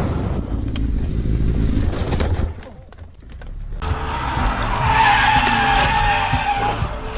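Low road and engine rumble, then, about four seconds in, a car's tyres squealing in a long, wavering skid that lasts nearly three seconds.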